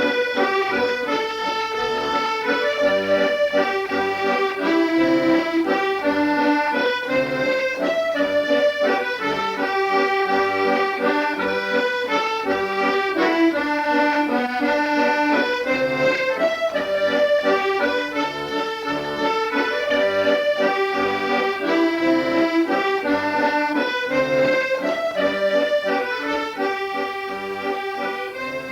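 Accordion playing a traditional tune: a melody of quickly changing notes over steady lower chords.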